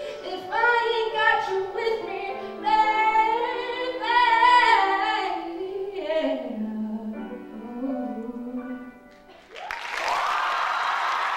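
Female vocalist singing the last phrase of a ballad to her own grand piano accompaniment, the voice and held piano notes dying away about nine seconds in. Audience applause breaks out about half a second later.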